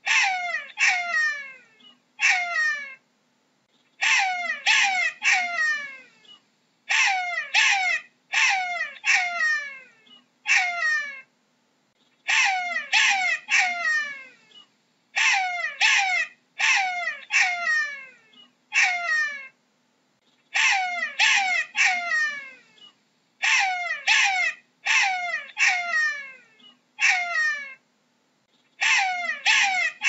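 Jackal yelping: short, high calls that each drop sharply in pitch, coming in quick runs of two to four with short silent gaps between runs.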